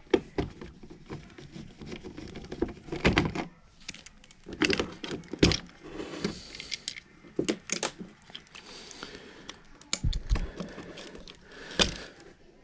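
Irregular clicks, taps and knocks with some rustling, from tools and parts being handled during furnace repair work.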